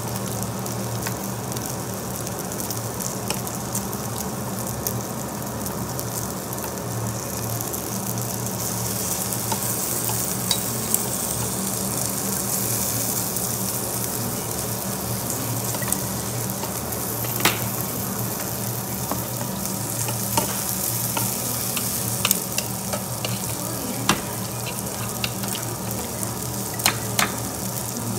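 Marinated duck meat sizzling steadily on a hot Korean barbecue grill plate. Metal tongs click sharply against the plate several times as the pieces are turned, most often in the second half.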